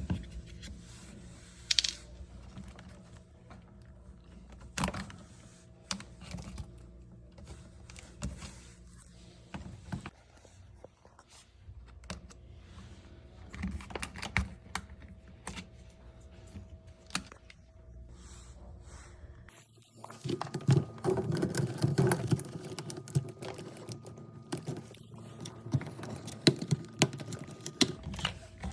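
Scattered metallic clinks and clicks of tools and metal parts being handled over a steady low hum. The background changes abruptly about two-thirds of the way through, and the clicks come more densely after that.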